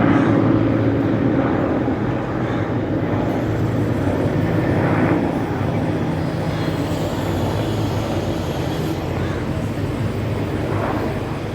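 Mil Mi-17-1V helicopter flying past, its rotor beating steadily over the whine of its twin turboshaft engines, easing off slightly near the end.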